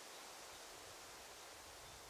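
Faint daytime forest ambience: a steady, even hiss of rustling leaves and open air, with a couple of faint, short, high chirps.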